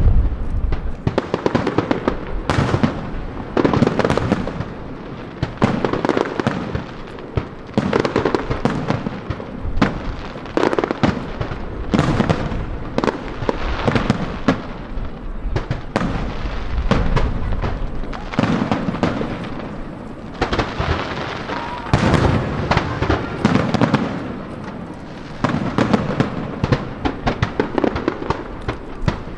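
Fireworks going off in rapid succession: many bangs close together, each ringing out briefly, with no break.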